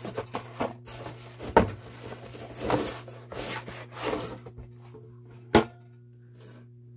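Cardboard packaging rustling and scraping as a boxed hand pump and its cardboard inserts are pulled from a shipping carton, with two sharp knocks, one about a second and a half in and a louder one about five and a half seconds in.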